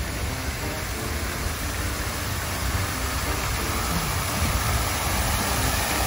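Water pouring steadily as a sheet from a stone-wall water feature, a constant rushing hiss of falling water.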